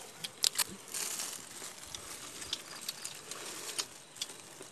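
Plastic bags and leaves being handled: scattered crinkles and light clicks over a faint hiss, with a short rustle about a second in.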